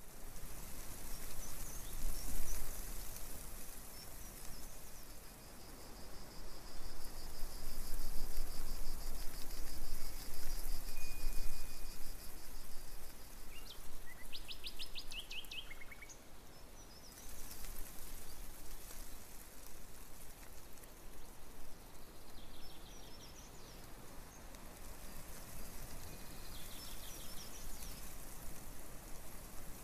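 Outdoor ambience: a steady hiss and low hum, with bird calls and long runs of rapid, high chirping trills. A short burst of quick chirps comes about halfway through.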